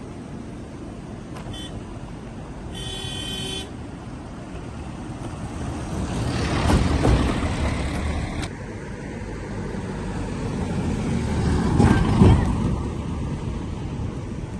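Road traffic: a vehicle horn sounds for about a second, then two vehicles pass one after the other, the first about halfway through and the second near the end, over a steady hum of traffic.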